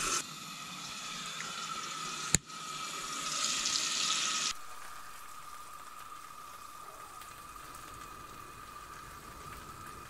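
Food sizzling and steaming in a pan on a stove, a steady hiss with a faint high tone under it. A sharp click comes about two and a half seconds in, and the hiss drops quieter about four and a half seconds in.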